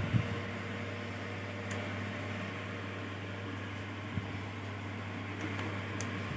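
Steady low hum and hiss of background room noise, with a couple of faint knocks right at the start and a few small ticks later.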